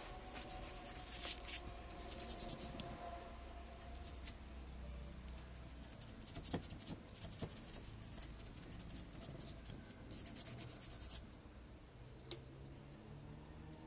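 Irregular bursts of scraping and rubbing as the metal fuel tank of a kerosene lantern is handled and worked on with a hand tool, stopping about eleven seconds in, followed by a few faint clicks.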